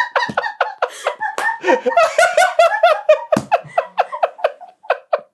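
Two men laughing hard together, a rapid string of pulsed laughs that thins out and dies down near the end.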